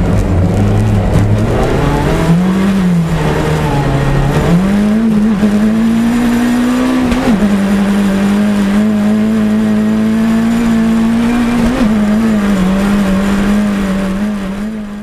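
Rally car engine heard from inside the cockpit at racing speed. Its note climbs about four seconds in, drops sharply a few seconds later, then holds fairly steady at high revs before fading out at the very end.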